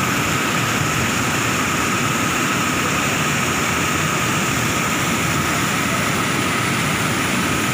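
Muddy floodwater rushing over a concrete weir drop: a loud, steady roar of falling water.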